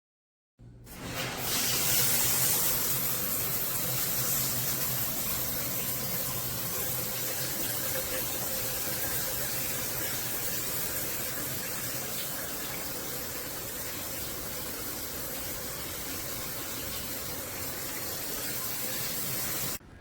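Shower head running, a steady spray of water hiss that starts abruptly about half a second in and holds evenly until a sudden cut at the end.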